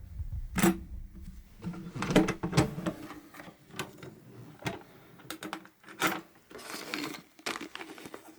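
Hands unboxing on a tabletop: irregular sharp clicks and knocks, with short stretches of rustling as the packaging and parts are handled.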